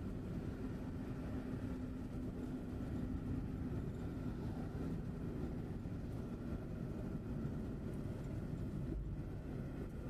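Steady engine drone and tyre rumble heard from inside the cabin of a vehicle driving along a highway at road speed.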